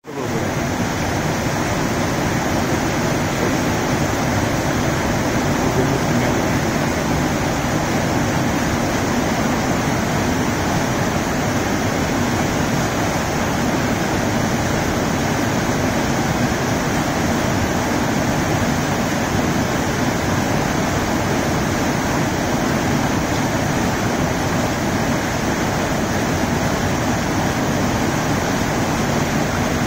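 Waterfall: white water tumbling over rock ledges and rushing on through a rocky stream, a steady loud rush that does not change.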